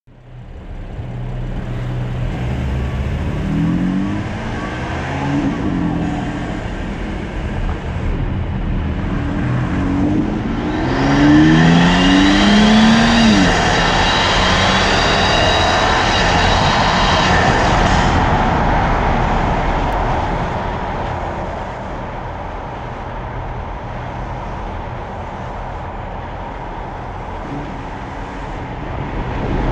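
BMW M3 F80's twin-turbo straight-six, fitted with an Eventuri carbon intake, revved several times, its pitch climbing with each rev. Around the middle a bigger rev brings a loud intake rush with a whistle lasting several seconds, then the engine settles back to a steadier, lower run.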